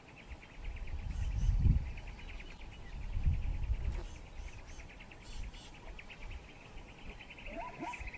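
Insects trilling in a fast, even pulse, with two low rumbles in the first half, and a bird's short rising calls repeating near the end.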